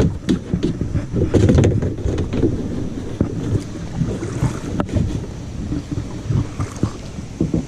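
Kayak being manoeuvred, with scattered knocks and scrapes of hull and paddle over a steady low rumble of wind on the microphone.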